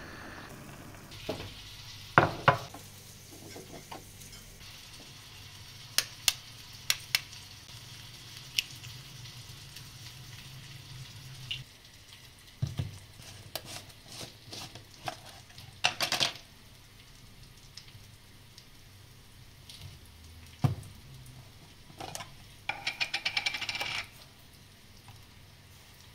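Spinach boiling in a pot with a steady bubbling hiss and a few loud knocks about two seconds in. After about eleven seconds the boiling stops and scattered clicks and taps follow as jars are handled on a wooden table, with a rapid run of clicks near the end.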